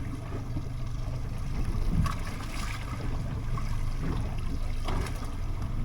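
Choppy water sloshing and slapping against the hull of a small boat in rough seas, with a few sharper splashes over a steady low rumble.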